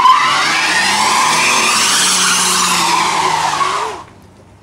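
Pickup truck's rear tyres spinning on pavement in a burnout: a loud, continuous tyre squeal that rises and then falls in pitch, cutting off about four seconds in.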